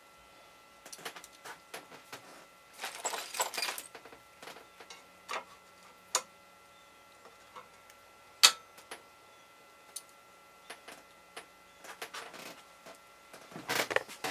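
Scattered clicks, taps and short scrapes of a steel caliper working on an aluminum plate clamped in a vise, with scratchy passes of the caliper jaw scribing layout marks through layout fluid. A single sharp click about eight and a half seconds in is the loudest.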